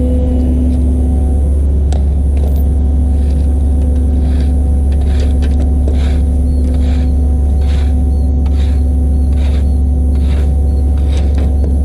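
Flatbed tow truck driving, heard from inside the cab: a loud, steady low engine and road drone. From about four seconds in there is a faint regular tapping, about twice a second.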